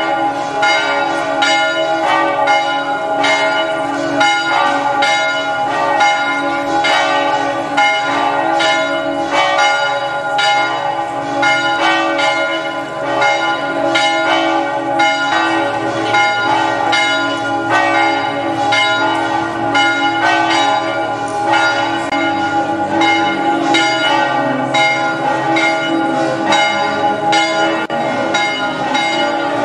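Church bells pealing for a religious procession: many strokes in quick succession, their tones ringing on over one another.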